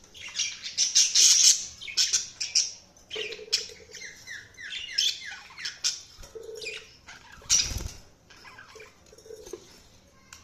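Budgerigars chirping and chattering in quick, scratchy bursts, with a run of short falling chirps in the middle. A brief loud noisy burst comes about three-quarters of the way through, and the calls grow quieter toward the end.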